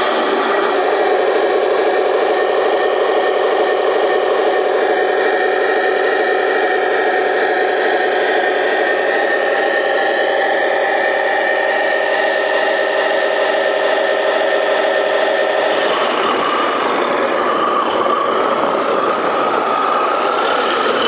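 Sound-effect unit of a 1/16 scale Taigen Tiger II RC tank playing a simulated tank engine idling through its small loudspeaker, a steady, buzzy drone. About 16 seconds in, the engine sound changes to a rougher, higher note.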